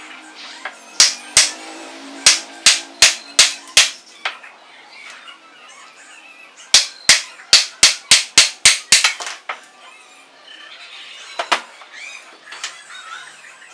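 Sharp hammer blows on a steel gear and shaft held in a bench vise, in two runs of quick strikes, about three a second, with a pause between, and a single blow near the end.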